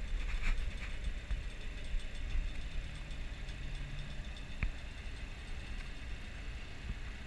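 A boat engine idling, heard as a low, steady rumble, with one sharp click about four and a half seconds in.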